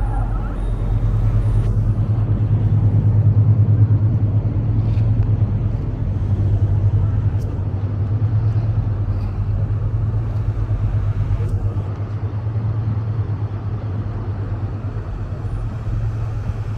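Tour boat's engine running steadily, a low drone that swells slightly a few seconds in, with water and wind noise faintly above it.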